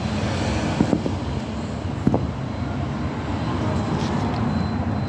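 Hyundai H1's D4CB four-cylinder diesel engine running with a steady low rumble, with two brief sharp sounds about one and two seconds in.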